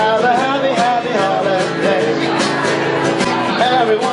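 Live acoustic music: men singing a melody over strummed acoustic guitars with a steady rhythm.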